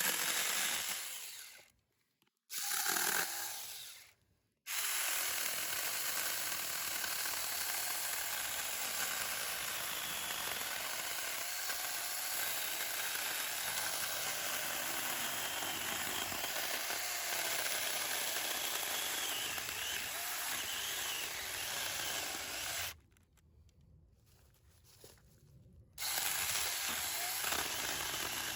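Battery-powered Saker mini cordless chainsaw cutting through a 4-inch-diameter cedar limb. Two short bursts come first, then a long steady cut of about eighteen seconds. It stops for about three seconds and runs again near the end.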